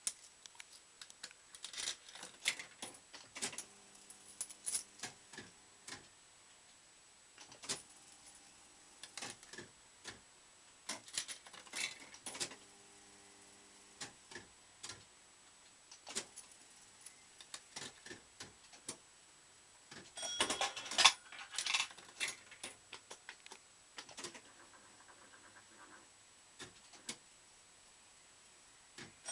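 Bell-Fruit Ten Up fruit machine running through a play: irregular mechanical clicks and clunks from the reels and switching gear, with a few short bursts of motor hum as the reels spin. A denser, louder burst of clattering comes about two-thirds of the way through.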